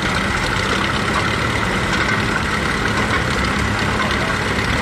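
Vintage tractor engines running steadily at slow parade pace, with a small crawler tractor passing close by.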